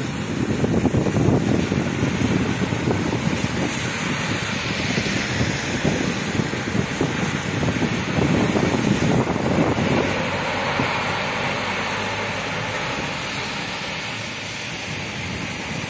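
Two heavy semi-trucks driving past one after the other on a wet road, their diesel engine rumble and the hiss of tyres through standing water swelling as each goes by, about a second in and again around eight seconds, then fading. Wind buffets the microphone.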